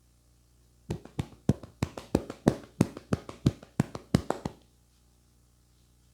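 Percussive hand strokes of an Indian head massage: a quick run of sharp slaps, about five a second, lasting about three and a half seconds.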